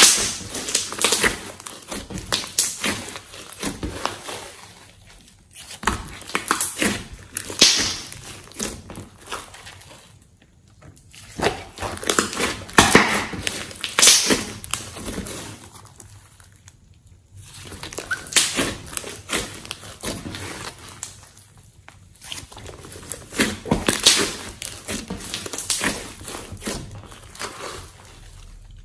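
Hands kneading and squeezing a thick mass of slime mixed with clay, making wet squelches and crackling pops. These come in spells of a few seconds, with short pauses between.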